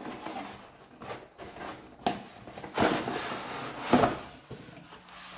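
A cardboard retail box being opened by hand: the lid and flaps rubbing, scraping and knocking in a string of short bursts, the loudest about four seconds in.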